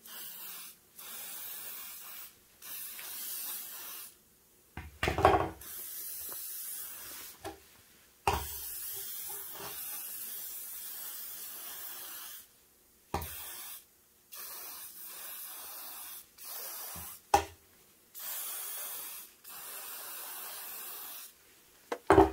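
WD-40 aerosol can sprayed onto a rusted M7 bayonet in repeated bursts of hiss, from under a second to about four seconds long, soaking the rust with penetrating oil. A few sharp knocks come between the bursts, about five in all.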